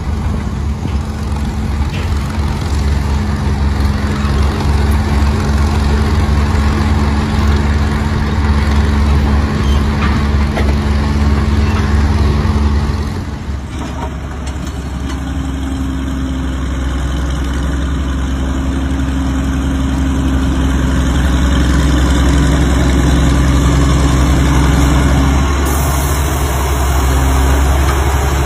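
Old heavy machinery engines running steadily. About halfway through the sound switches abruptly to the engine of a Northwest crawler shovel running while the shovel digs.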